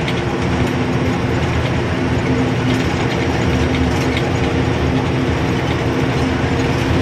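Goods lorry's diesel engine running steadily at road speed, heard from inside the cab, with a constant low hum and rumble.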